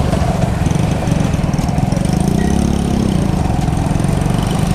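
Yamaha R15 V4's single-cylinder engine running steadily while riding, its pitch rising and falling once about halfway through as the throttle is opened and eased off.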